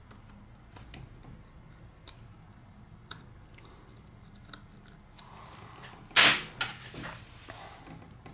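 Metal pry tool and tweezers picking at broken glass and adhesive on a tablet frame: scattered light clicks and ticks, with one loud sharp click about six seconds in followed by a few smaller ones.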